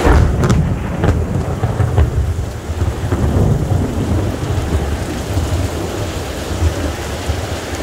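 Heavy thunderstorm: rain pouring down while thunder rumbles low and long, with a few sharp cracks in the first two seconds.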